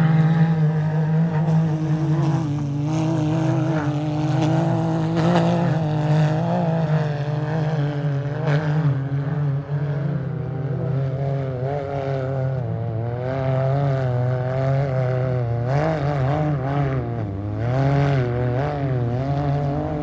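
Off-road race vehicle engines running hard, their pitch rising and falling repeatedly as they rev.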